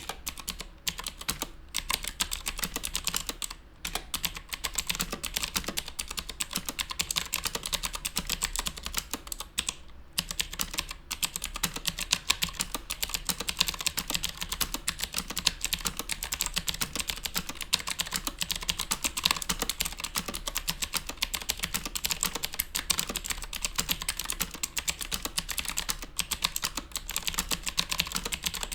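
Fast, continuous typing on an Aula F2058 full-size mechanical keyboard: a dense run of key clicks, with brief pauses about 4 and 10 seconds in.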